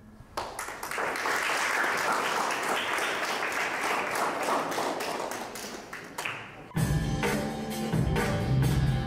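Audience clapping for about six seconds, then a dance track with a heavy bass beat starts abruptly for the breakdance routine.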